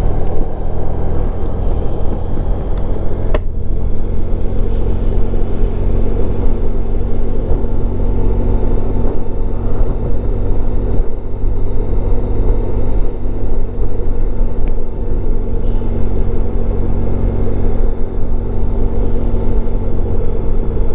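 1994 Honda ST1100's V4 engine running at a steady cruise while riding, under heavy wind rumble on the microphone. A single sharp click sounds about three and a half seconds in.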